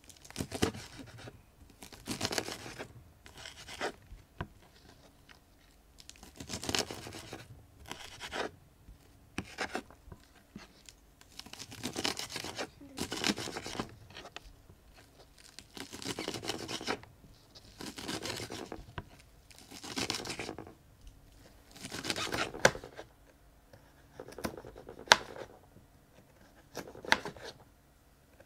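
Kitchen knife slicing through crisp romaine lettuce on a wooden cutting board: bursts of crunching a second or two long, with short pauses between. Near the end come sharper single knife chops.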